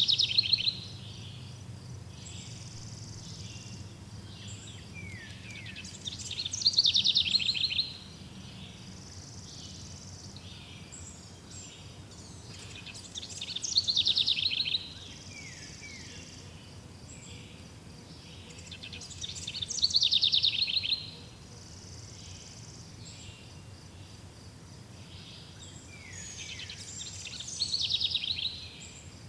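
A songbird repeating the same fast, trilled phrase five times, about every six and a half seconds; each phrase swells in loudness as it runs and drops in pitch. A steady insect-like buzzing hum carries on underneath.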